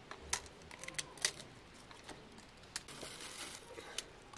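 Scattered sharp clicks and taps of potatoes being handled and peeled by hand over cut-open plastic jerrycans.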